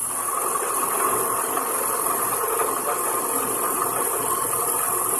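TU-2A CNC training lathe running a program, a steady machining noise that sets in suddenly, over a low motor hum.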